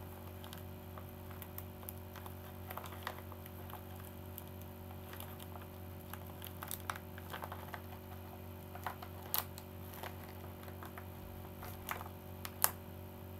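Faint plastic crinkling and small clicks as a padded mailer's bubble wrap and tape are picked at and peeled by hand. The sounds are scattered, with a few sharper ticks in the second half, over a steady low hum.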